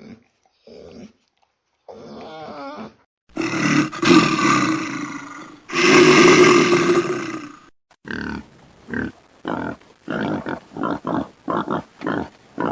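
Tiger roaring: two long, loud roars, then a run of short grunting roars about two a second. Before them come a few quieter short growls.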